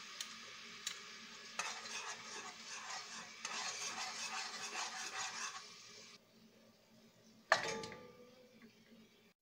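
Tomato sauce sizzling in hot oil in an aluminium pan as it is stirred, with light clicks of the spoon against the pan; the sizzle stops about six seconds in. Near the end a single loud clank with a short ring, as of the glass lid knocking on the pot.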